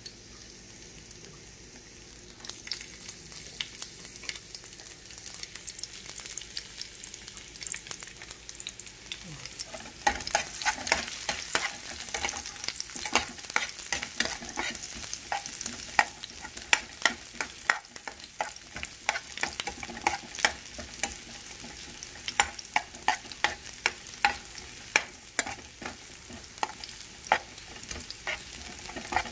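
Chopped garlic sizzling in olive oil in a white nonstick frying pan while a metal spoon stirs it, with frequent sharp clicks of the spoon against the pan. The sizzle is faint at first and gets louder about ten seconds in.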